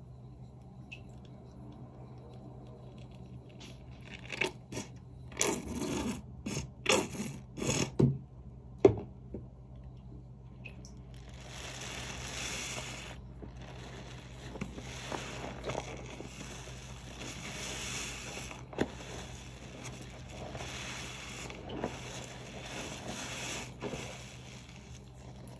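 A wet, soapy sponge being squeezed and rubbed. A handful of sharp squelches come in the first half, then a long run of hissing scrubbing strokes that swell and ease every second or two.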